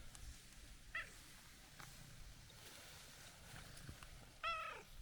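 A cat meowing twice: a short chirp-like call about a second in, then a louder meow near the end that falls in pitch.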